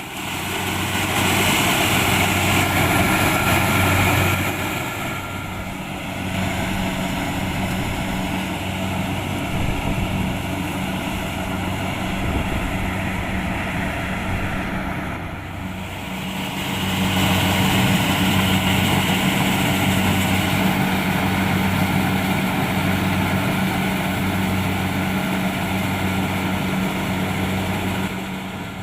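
Kubota DC-70 Plus combine harvester running steadily, its diesel engine and threshing machinery giving a continuous drone that swells louder twice, first near the start and again through the second half.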